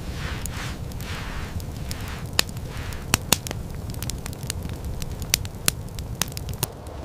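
Wood fire crackling in a hearth: irregular sharp pops and snaps over a low steady rumble.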